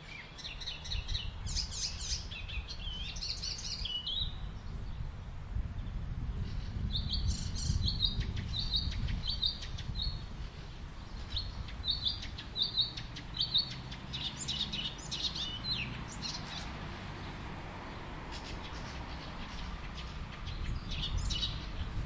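Wild birds chirping and calling in scattered bursts, including a run of short repeated high notes, over a steady low rumble of outdoor ambience.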